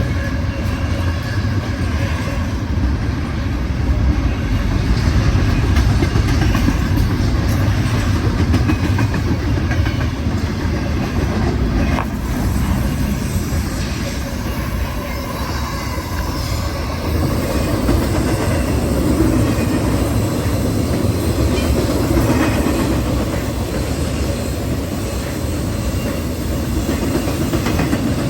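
BNSF Railway intermodal freight train passing at speed: steady, loud noise of the wheels and cars running on the rails, with some clickety-clack.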